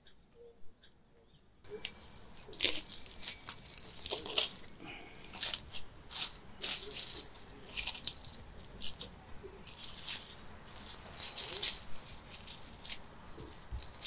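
Plastic cling wrap crinkling and crackling as it is stretched and smoothed over a glass bowl, in irregular rustles that begin about two seconds in.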